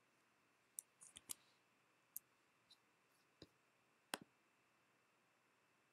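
Computer mouse clicks: a quick cluster about a second in, then single sharp clicks spaced out, the loudest about four seconds in, over faint room tone.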